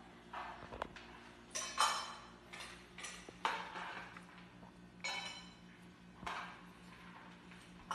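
Dry cat kibble being scooped and dropped into metal feeding bowls: irregular clinks and rattles of kibble on metal, roughly one every second.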